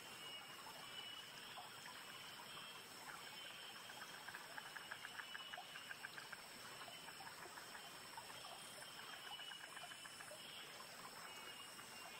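Faint runs of small rapid clicks, loudest around the middle: a crested gecko crunching a dubia roach as it chews.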